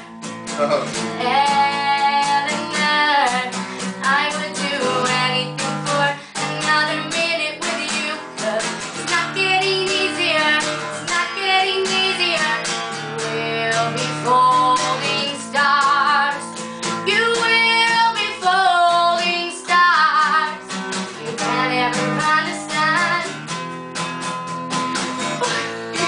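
A woman singing live to a strummed acoustic guitar.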